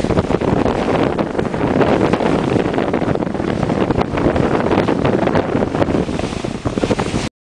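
Strong wind buffeting the microphone over the rush and splash of water along the hulls of a Dragonfly 800 trimaran sailing fast through short, choppy waves. The sound cuts off suddenly just before the end.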